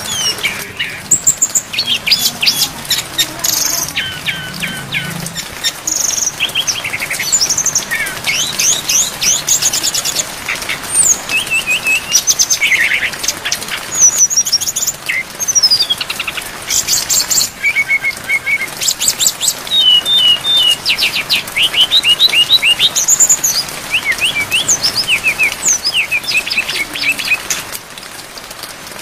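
A sikatan rimba dada coklat (SRDC jungle flycatcher) sings a long, varied song of rapid trills, quick note runs and whistled slides, full of fill-in phrases, over a steady hiss of rain. The song stops about a second before the end, leaving only the rain.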